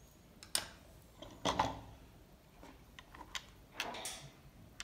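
Plastic accessory parts handled by hand, a remote-control holder and a small plastic box, giving irregular clicks and knocks. The loudest come about half a second and a second and a half in, with a rustling knock near the end.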